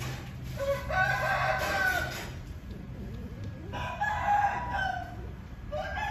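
Female cat in heat yowling while a tom mounts her. There are two long, drawn-out calls about three seconds apart, and a third begins near the end.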